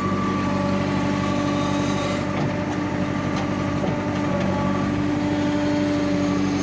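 JCB backhoe loader's diesel engine running steadily while the backhoe arm is worked, heard from inside the cab, with a steady whine over the engine note.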